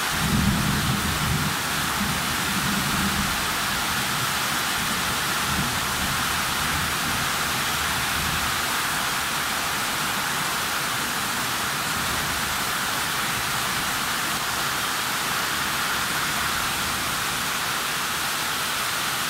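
Heavy tropical downpour pouring onto roofs and a flooded yard, a steady dense hiss. A low rumble stands out over it in the first three seconds or so.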